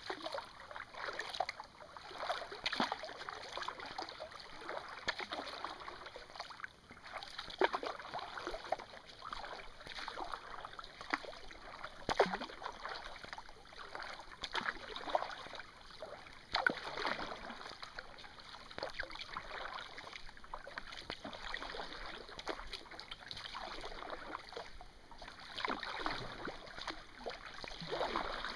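Kayak paddle strokes: the blades dip and pull through calm water in a regular rhythm, about one stroke every second or so, with splashing and dripping water between strokes.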